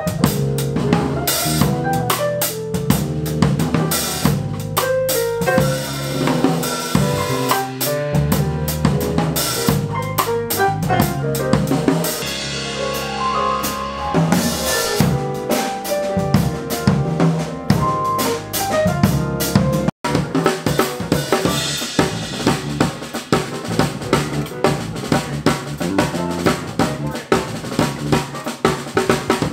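Drum kit played live in a fast, busy groove, with snare and bass drum strokes packed closely together. The playing drops out for an instant about two-thirds of the way through.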